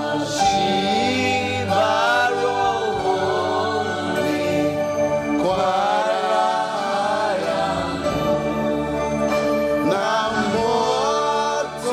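Gospel song with voices singing in phrases over sustained instrumental backing.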